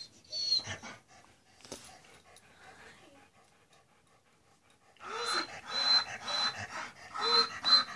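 A dog panting rapidly from about five seconds in, with its collar tags jingling; a brief short noise about half a second in.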